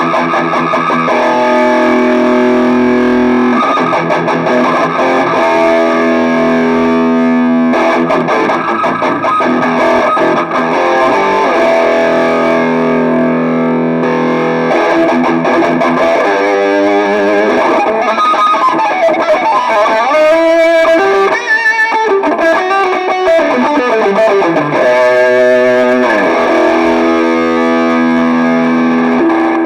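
Electric guitar played through an Arcano Metal End distortion pedal into an amplifier: heavily distorted held chords and riffs, with a stretch of fast sliding lead notes in the middle.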